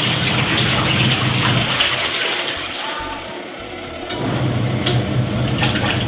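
Von twin-tub washing machine's wash-tub motor and pulsator churning water to mix in liquid detergent before the clothes go in, a steady motor hum under sloshing water. It stops for about two seconds partway through, then starts again.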